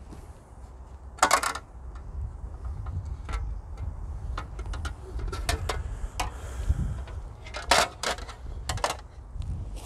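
Armour of 14-gauge (2 mm) steel being handled: several separate metallic clinks and clanks as the breastplate and its fittings knock together and are set down, one near the start ringing briefly.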